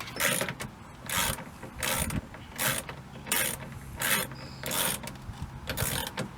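Ratchet wrench worked in short strokes, about eight ratcheting bursts, one roughly every three quarters of a second, as the stock bolt is tightened to secure the steering-wheel short hub.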